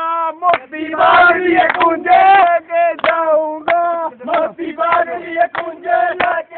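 Chant-like male singing on a steady, repeated note, with sharp claps between the phrases.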